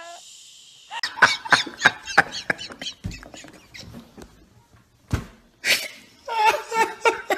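A man laughing hard: a fast run of short, wheezing, squeaky laughs, a brief pause, then louder open-mouthed ha-ha laughs near the end.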